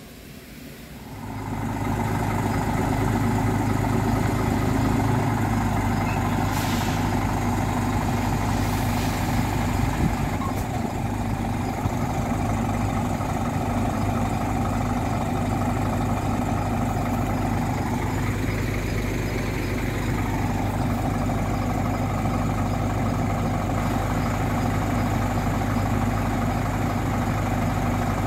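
Scania R540 truck's diesel engine idling steadily, a loud, even hum that comes up about a second and a half in.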